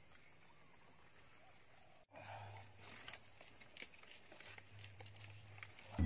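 Faint steady insect buzzing that cuts off suddenly about two seconds in. Then faint rustling and light clicks of hands working a rope lashing on bamboo poles, over a low hum.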